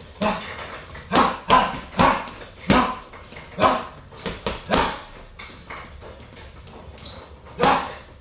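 Gloved punches landing on a hanging heavy bag in quick combinations, about nine blows, with a lull of a couple of seconds before a last hard one near the end.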